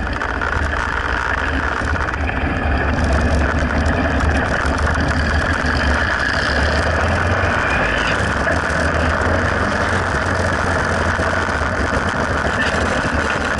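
Motorcycle engine running steadily at road speed, heard from a camera on the moving bike, with wind over the microphone and tyre noise from the wet road.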